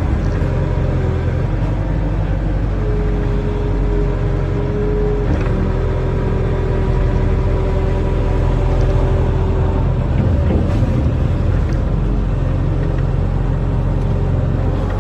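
Diesel engine of a barge-mounted excavator running steadily under load, with a steady whine over it that stops about ten seconds in.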